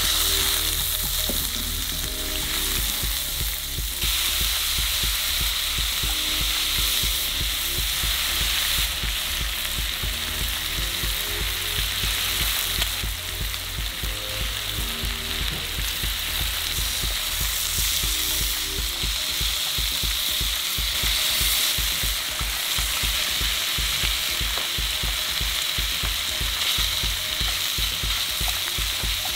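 Food stir-frying in a hot frying pan: a steady, loud sizzle, stirred and tossed throughout.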